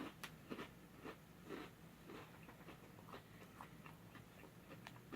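Faint chewing of a crunchy seaweed-flavoured cracker: soft, irregular crunches and small mouth clicks.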